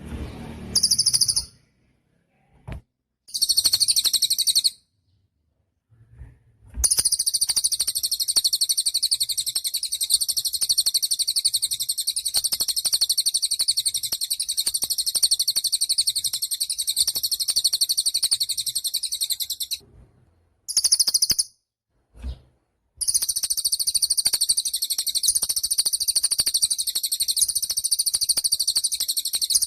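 A cililin songbird singing a rapid, high-pitched chattering trill. There are a few short bursts, then long unbroken runs of fast repeated notes that start and stop abruptly. This is the loud, sustained 'gacor' song used as masteran for training other songbirds.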